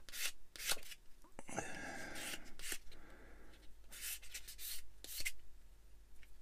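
Small plastic model-kit parts being handled and fitted together by hand: scattered light clicks and taps, with a longer scraping rub about one and a half seconds in.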